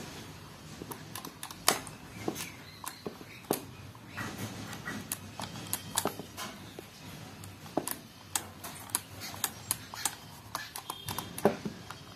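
Irregular sharp clicks and taps of hands working on a chainsaw's plastic housing and small metal parts.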